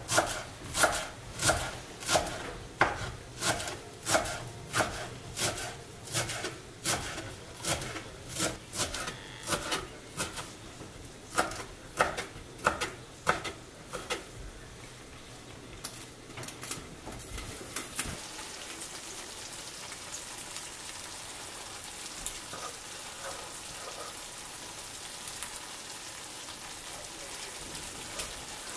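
Knife chopping fresh herbs on a wooden cutting board, sharp knocks about one and a half a second, thinning out and stopping about 16 seconds in. From about 18 seconds in, a steady sizzle of chicken cooking in tomato sauce in a frying pan.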